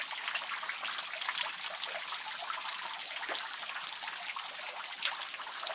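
Water dripping and trickling at Dripping Well, a natural spring seep: many quick drips and small splashes over a steady trickle.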